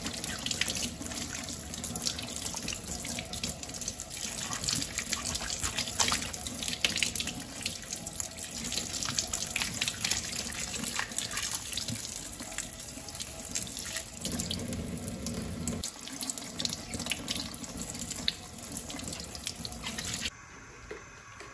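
Kitchen tap running onto a corn cob being rubbed clean by hand over a sink, a steady splashing of water with small irregular spatters; it drops away near the end.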